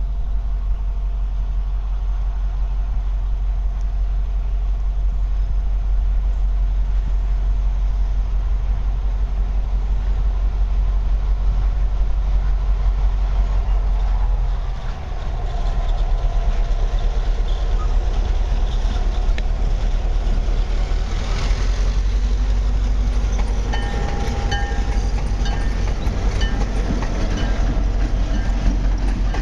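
Milwaukee Road 532 diesel locomotive running as it approaches, then passenger coaches rolling past with wheels clacking over the rail joints. A low rumble carries throughout, and a thin steady squeal from the wheels on the rail joins in during the last few seconds.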